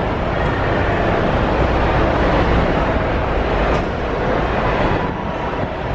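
Steady street noise of traffic: a continuous low rumble with a dense hiss over it.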